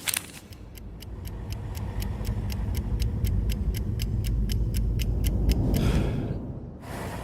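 Steady mechanical ticking, about four ticks a second, over a low rumble that grows louder, then cuts off suddenly about six seconds in.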